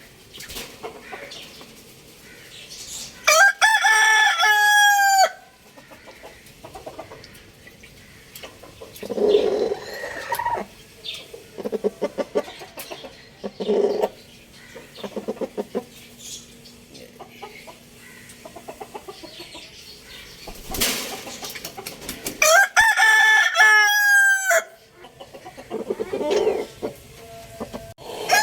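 Rooster crowing twice, each crow a long, loud call of about two seconds, the two nearly twenty seconds apart. Between them come runs of short, rapid clucking calls.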